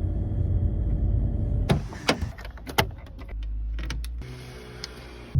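Low car rumble, then from about a second and a half in a run of sharp clicks and knocks, followed by a steady low hum.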